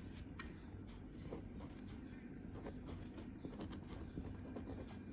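Faint scattered light clicks and taps over a steady low background hum, from small carbide brazed tips being handled.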